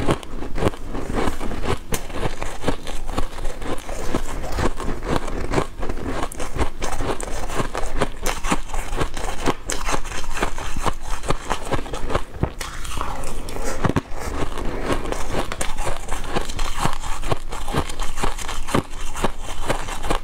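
Crushed ice crunched and chewed in quick, continuous bites close to the microphone, with a metal spoon scraping in a stainless steel pot now and then.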